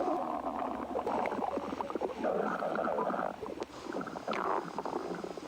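Stomach growling and gurgling: an irregular run of wet, crackling rumbles that goes on and off in uneven bursts.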